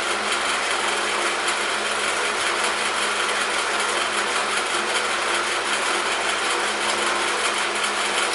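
Electric fan running steadily: an even rushing noise with a faint steady hum.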